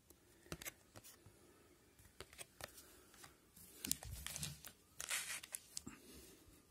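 Faint crinkling and tearing of a trading-card pack wrapper being opened, with scattered light clicks of handling. The strongest crackly bursts come about four and five seconds in.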